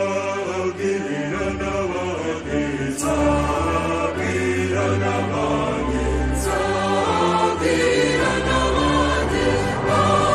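Choral music: a choir singing held notes over a low bass, with a brief bright swish about every three and a half seconds.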